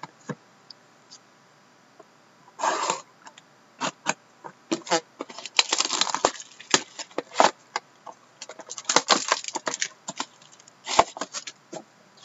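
A sealed trading card box being torn open by hand: irregular bursts of crackling wrapper and cardboard, with many sharp clicks and rustles.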